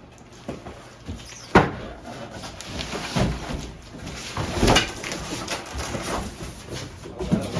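Cardboard box and packaging being handled and pulled apart while unboxing, with rustling and scraping and a few knocks. The sharpest knock comes about a second and a half in, and another near the middle.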